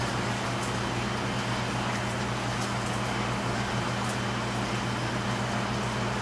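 A steady machine hum with a constant low drone and an even airy noise, like a fan or ventilation running, with a few faint tiny clicks.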